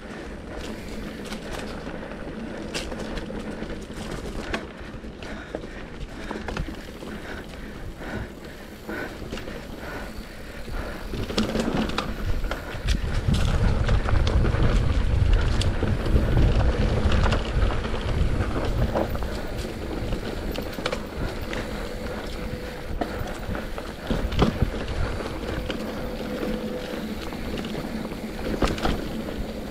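Mountain bike riding down a dry dirt trail: tyres running over the ground and the bike rattling and clattering over bumps. A louder low rumble of wind on the microphone swells through the middle.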